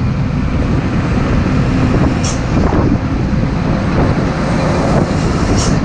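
Road noise from a Hino truck and its drawbar trailer rolling at highway speed close by: a steady, loud rumble of heavy tyres and diesel running, mixed with wind on the microphone, with two short high hisses.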